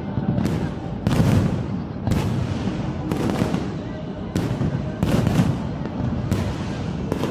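Aerial fireworks bursting one after another, a sharp bang about once a second, over a steady low rumble of crowd noise.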